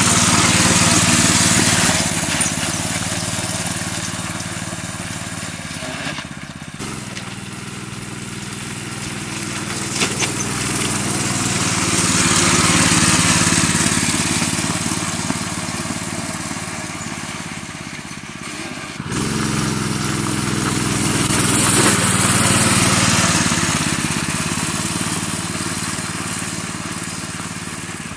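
Small engine of a kids' off-road buggy running as it drives by. It grows louder and fades away several times, with a few sudden jumps in level.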